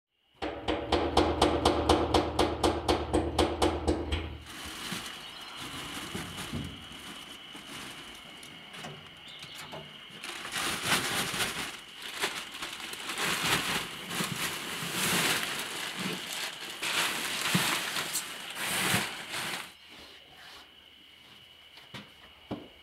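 Plastic bag liner full of wood shavings rustling and crinkling in irregular bursts as it is handled. For about the first four seconds a loud hum with a rapid, even pulsing runs, then stops.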